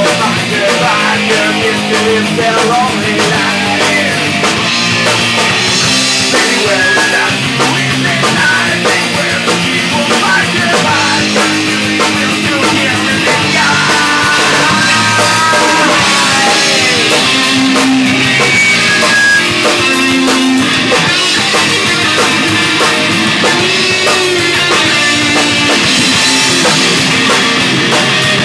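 Rock band playing an instrumental passage of a heavy metal song: distorted electric guitars over bass and drum kit.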